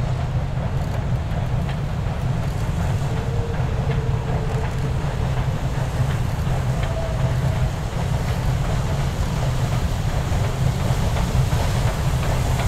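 Western Maryland 1309, a 2-6-6-2 articulated steam locomotive, working hard at the head of a freight train: a steady deep rumble with no let-up.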